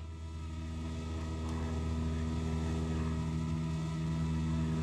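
A steady engine hum at one unchanging pitch, slowly growing louder.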